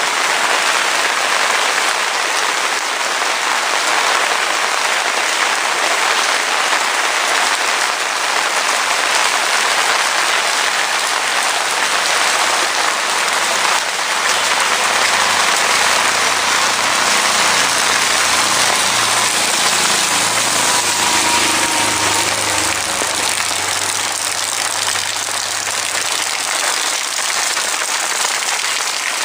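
Heavy rain falling steadily, a dense even hiss. From about ten seconds in until near the end, a low engine hum sits faintly underneath.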